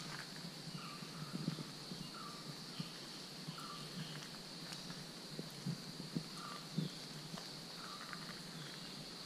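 Forest ambience: a steady high insect drone, with short chirping calls repeating about once a second and soft footsteps on a dirt path.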